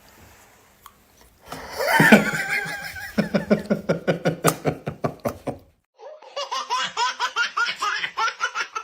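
People laughing hard in rapid fits: a loud outburst about two seconds in, then a second, higher-pitched fit of laughter after a short pause.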